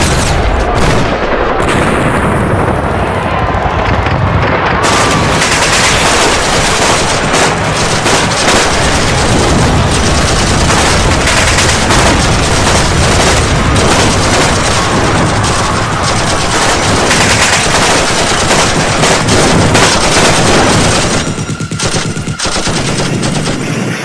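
Battle sound effect of heavy, continuous gunfire: rapid machine-gun bursts and shots crackling over one another without a break, thinning out a few seconds before the end.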